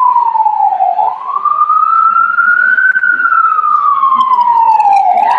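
Emergency vehicle siren wailing, loud, its pitch sliding slowly down and back up: low points about a second in and near the end, high point around three seconds in.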